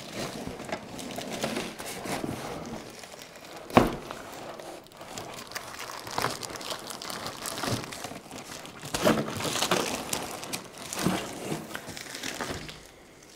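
Clear plastic film around a potted plant and a cardboard shipping box rustling and crinkling as they are handled, with one sharp knock about four seconds in.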